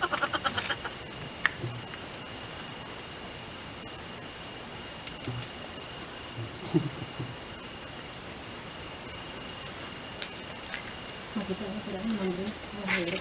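Steady, continuous high-pitched trilling of an insect chorus, unchanging throughout, with faint voices in the background near the end.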